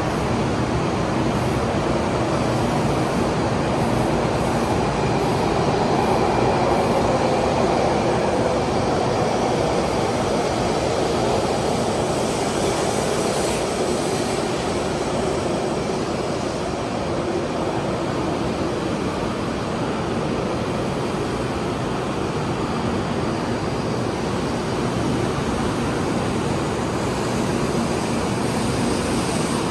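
Taiwan High Speed Rail 700T train running slowly along the station platform, a steady, even rolling and running noise from its wheels and traction equipment.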